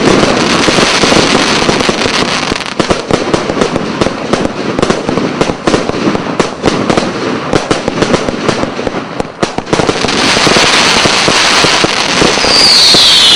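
Fireworks going off: a dense run of rapid crackling bangs that thickens into continuous crackle about ten seconds in. Near the end come high falling whistles.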